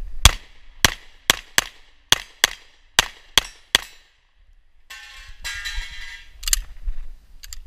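A pistol fired nine times in quick succession over about three and a half seconds, some shots in close pairs. A stretch of rustling and handling noise follows about a second later.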